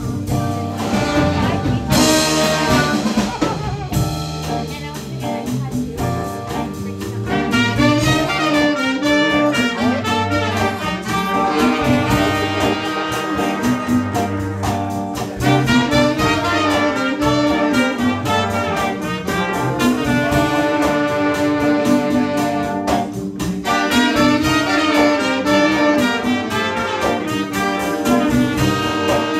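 Jazz music with brass horns playing over a moving bass line.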